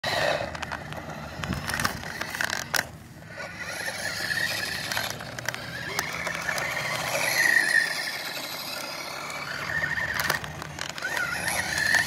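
Small electric motor of a Radio Shack toy remote-control car whining as it drives over dirt, the whine rising and falling in pitch as it speeds up and slows, with scattered clicks and knocks.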